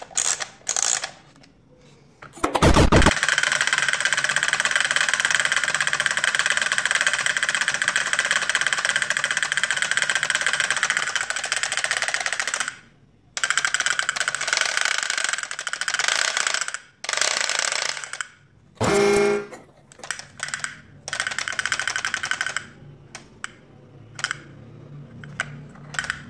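Wind-up toy drummer running: its spring motor drives the sticks in a rapid, even rattle on a small plastic drum. The roll starts just after a brief low pitched tone about three seconds in and runs for about ten seconds. It stops, then comes back in shorter bursts as the spring winds down.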